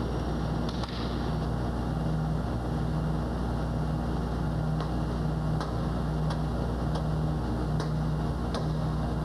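Steady low machinery hum, with a low tone pulsing about three times every two seconds and scattered light clicks over it.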